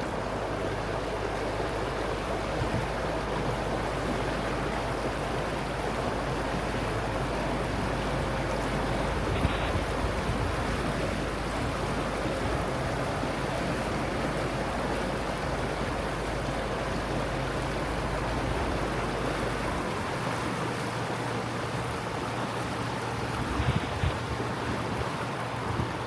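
Tour boat underway on a canal: a steady low motor hum under wind and water noise. About twenty seconds in the deepest hum drops away and the motor note shifts, and a few brief knocks follow near the end.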